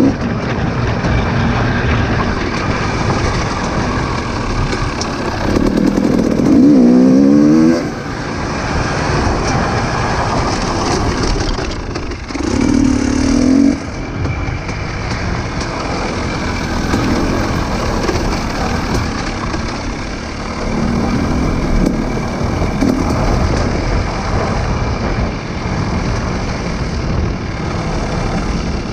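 Off-road vehicle engine running, revving up in short climbs several times, loudest in a rev about six to eight seconds in.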